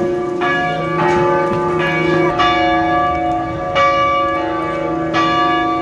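Church bells ringing, several strikes at uneven intervals, each ringing on and overlapping the last, before mass. The ringing cuts off abruptly near the end.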